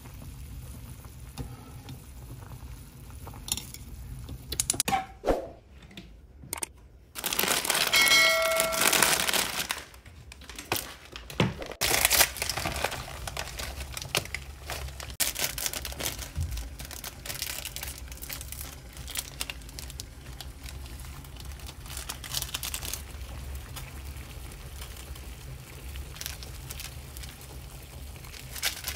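Water boiling hard in a stainless steel pot, a steady bubbling crackle. About eight seconds in, a louder rushing noise with a ringing tone lasts a couple of seconds.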